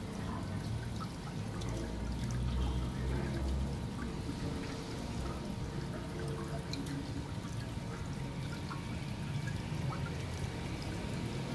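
Water draining out of a water tank through its opened outlet, pouring and splashing steadily onto a concrete floor.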